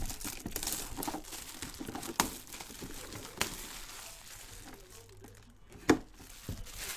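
Clear plastic bag crinkling as an autographed mini football helmet is handled and unwrapped, with a few sharp clicks and a louder knock about six seconds in.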